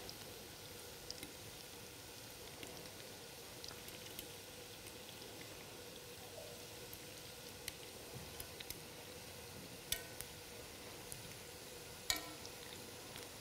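Chicken kefta balls sizzling as they shallow-fry in oil, with small clicks of forks against the pan as they are turned. Two sharper metal clinks near the end.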